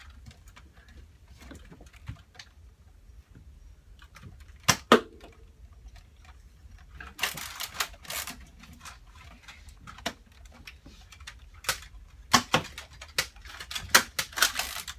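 Scattered plastic clicks and knocks from Nerf blasters being handled, primed and fired: a sharp pair about five seconds in and a quick run of clicks near the end, with about a second of rushing noise around seven seconds.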